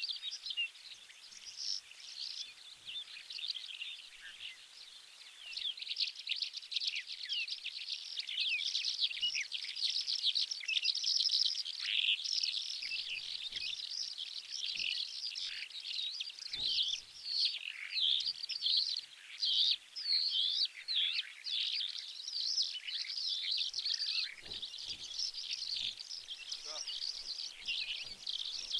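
A chorus of songbirds singing and twittering without pause, thinner for the first few seconds and fuller from about six seconds in.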